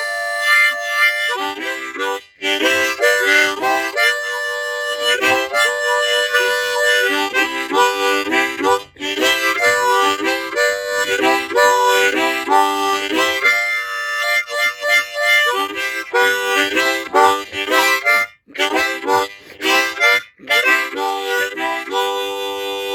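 Harmonica played by a beginner, who says he has no clue what he is doing: chords of several notes at once and wavering runs, broken now and then by short pauses.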